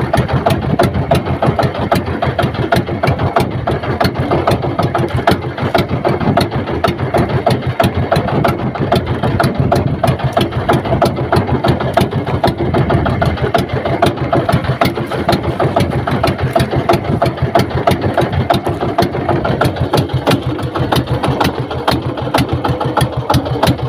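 Small boat engine running steadily, with an even, rapid pulse and no change in speed.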